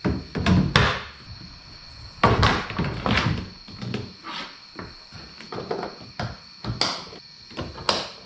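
Irregular thunks and knocks of hard kayak gear being handled and set down, some loud, some light, with a faint steady high tone underneath.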